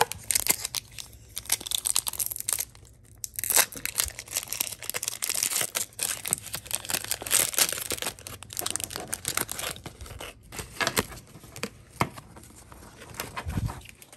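A Pokémon trading-card booster pack's foil wrapper being torn open and crinkled, in a dense, irregular run of crackling and rustling with sharp little snaps, as the cards are pulled out.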